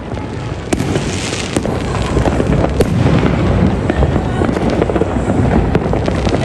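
Many fireworks going off at once: a dense, continuous crackle of bursts and booms with sharp reports scattered through it.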